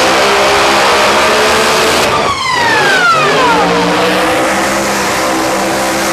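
Supercharged drag-racing V8 held at high revs during a tyre burnout, running loud and steady. About two seconds in the note briefly drops away and a falling whine sweeps down over about a second before the engine note settles back.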